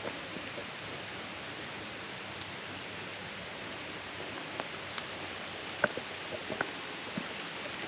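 Light rain falling on woodland leaves: a steady hiss with a few sharp drip taps, most of them in the second half.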